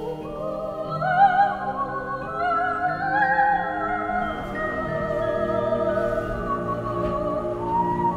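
Background music: a slow classical piece in which a high melody of long notes with a wide vibrato, operatic in character, rises and then settles on a held note near the end, over sustained accompaniment.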